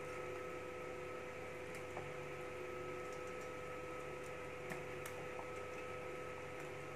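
Quiet kitchen background: a steady hum with a few faint, soft ticks scattered through it, the loudest a little under five seconds in.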